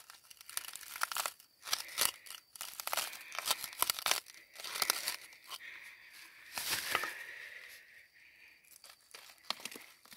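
Screwdriver scraping and prying into crumbly kaolin and quartz vein rock, giving irregular gritty scrapes and crunches as the rock breaks up.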